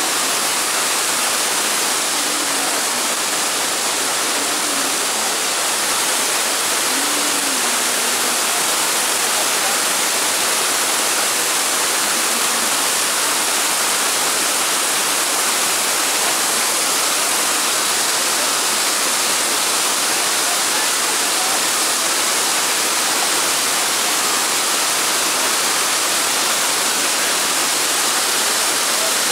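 Waterfall plunging into a pool below, a steady unbroken rush of falling water. A few faint voices are heard under it in the first several seconds.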